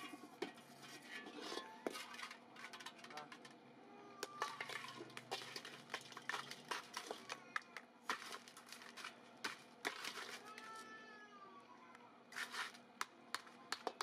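Steel rod and hammer knocking and scraping against a freshly cast aluminum camlock cap and a steel bowl, breaking the sand core out of the casting: a run of sharp, irregular metallic clinks and taps.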